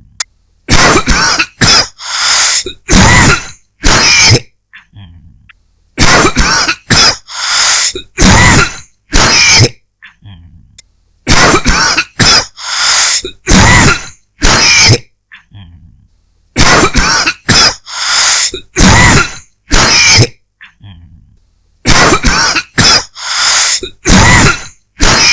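A person coughing a dry, hacking cough in repeated fits. Each fit is several sharp coughs over about three seconds, and the fits come about every five seconds with short quiet breaks between them.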